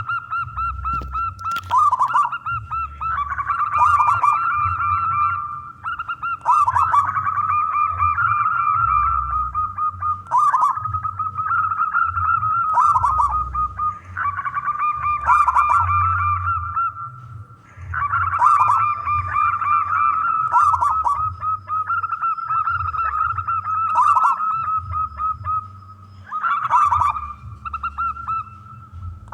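Zebra dove (local perkutut) cooing, a loud rolling coo phrase coming again about every two seconds, over a low rumble.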